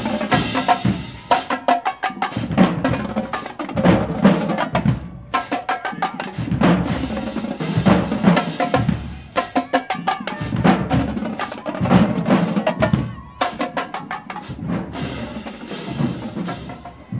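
Marching band drumline playing a street cadence: snare drums, tenor drums and bass drums hitting a fast, driving rhythm in phrases of about four seconds with brief breaks between.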